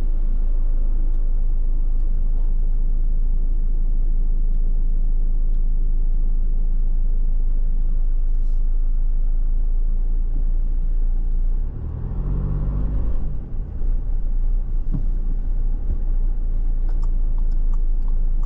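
Car on the road: a steady low rumble of engine and tyres, with a brief shift in the engine note about twelve seconds in.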